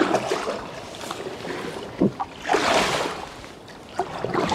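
Packraft paddle strokes, the blades splashing and pulling through the water in a few separate swells of noise.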